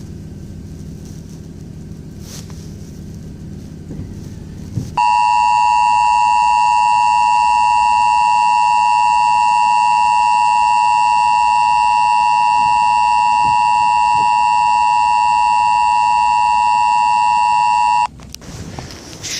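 Low rumbling noise, then about five seconds in a loud, steady two-tone electronic alert tone, the emergency broadcast attention signal, held for about thirteen seconds before cutting off suddenly.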